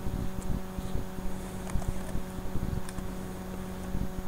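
A few scattered computer-keyboard keystrokes over a steady low hum.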